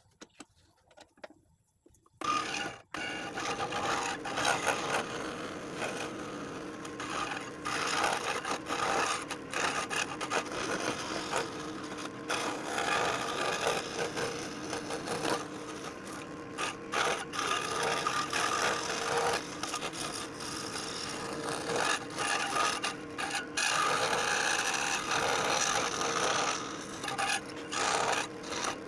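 Scroll saw starting up about two seconds in and cutting wood steadily, with short pauses in the cut.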